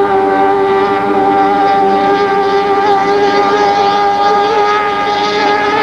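Mercury racing outboard on a D-mod hydroplane running flat out at high, steady revs: a loud whine holding nearly one pitch as the boat runs down the course.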